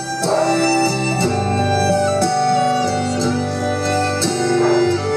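Music playing over Bluetooth through a Mondial CM500 amplified speaker, a test playback after a burnt 2-ohm resistor in its amplifier was replaced; the speaker plays steadily, showing the repair works.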